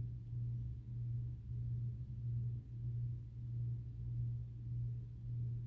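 Steady low hum with faint background noise; no strokes or other events stand out.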